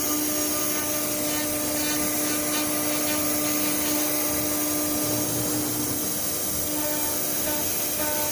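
ATC CNC wood router's spindle running steadily with a constant whine over a hiss of cutting noise, as it mills wood.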